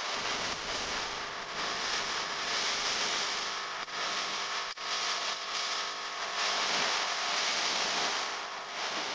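Steady rushing background noise with a faint hum underneath, dropping out briefly twice about four to five seconds in.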